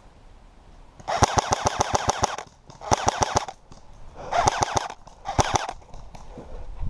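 Airsoft gun firing on full auto: four rapid bursts of evenly spaced shots, about a dozen a second, the first and longest lasting about a second and a half.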